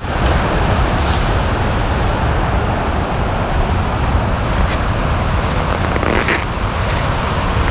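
A steady, loud rushing noise with no clear pitch or rhythm.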